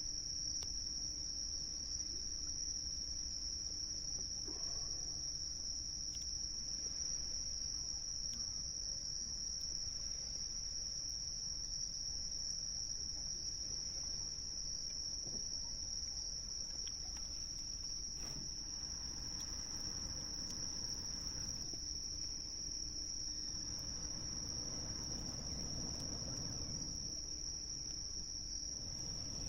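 Crickets singing an unbroken high-pitched trill, over a low, soft wash of waves that swells a little near the end.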